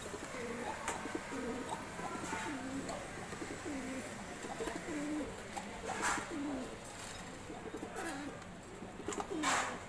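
Domestic pigeons cooing: a long series of low, rolling coos, one after another about once a second, thinning out near the end. A couple of sharp knocks stand out, the loudest near the end.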